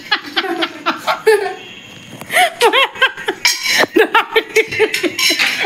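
A woman laughing in quick repeated bursts, starting about two seconds in after a quieter moment, mixed with some talk.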